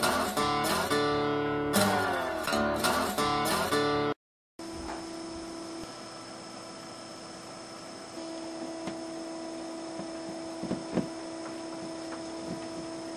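Strummed acoustic guitar music for about four seconds, cutting off abruptly. After a brief silence a steady electrical hum follows, with a few faint knocks.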